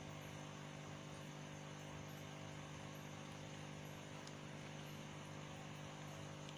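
Steady electrical hum with a stack of many evenly spaced overtones, strongest in a low buzz, unchanging throughout.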